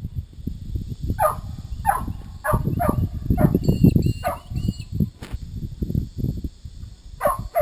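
Dog barking repeatedly, a run of short barks in the first half and one more near the end, over low rumbling buffeting on the microphone.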